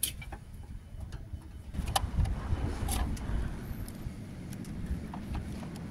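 Manual caulking gun being squeezed to run silicone along a metal chimney flashing tray, with a few light clicks. A low rumble comes in about two seconds in and eases off toward the end.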